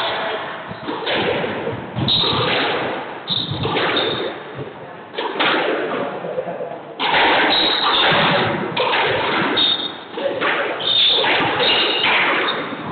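Squash rally: the ball is struck by the rackets and hits the court walls in a rapid series of sharp, echoing smacks. Short high squeaks from court shoes on the hardwood floor come in between.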